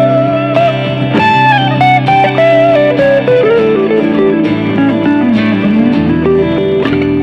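Guitar playing a slow melody with bent, gliding notes over sustained lower notes, with a chord struck near the end and left ringing.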